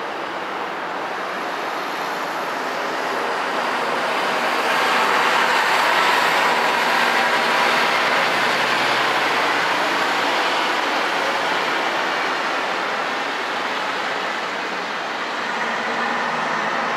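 Rushing noise of passing traffic, swelling to a peak about six seconds in and then slowly fading.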